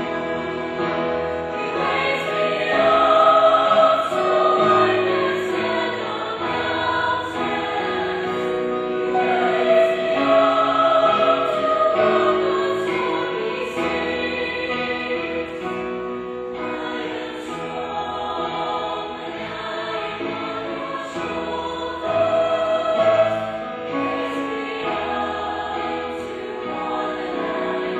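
School choir singing a slow song in long, held notes, with musical accompaniment.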